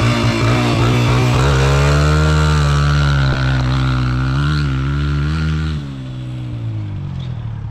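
A motor vehicle engine running under throttle, its pitch rising about a second and a half in and wavering up and down, then dropping back about six seconds in.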